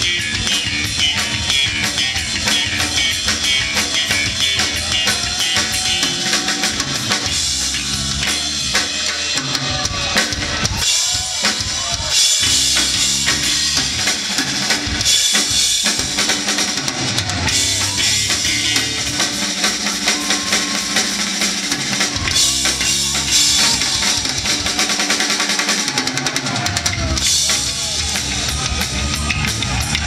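Live rock band with the drum kit to the fore: bass drum, snare and repeated cymbal crashes over electric guitar and bass. The bass drops out briefly a few times in the second half.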